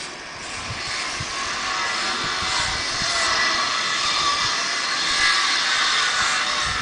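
Roar of a jet aircraft overhead, building over the first few seconds and then holding steady.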